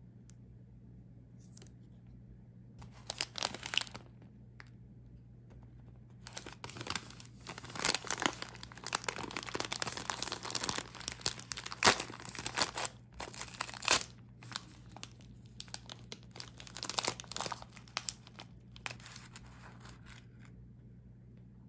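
Paper snack bag crinkling and tearing as it is torn open by hand, in irregular bursts, busiest through the middle.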